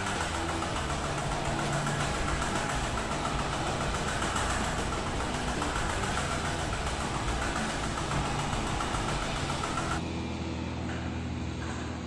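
Three-blade ceiling fan running fast and swinging on its downrod: a steady motor hum under a wide rush of air from the blades, the hiss thinning about ten seconds in.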